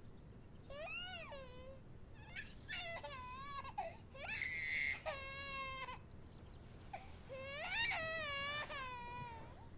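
Cartoon crying sound effect: a character bawling in a run of high-pitched, wavering wails, each a second or two long, broken by short pauses.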